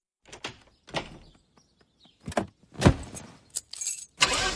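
A series of separate knocks and thuds, then a car engine starts running near the end with a steady low pulse.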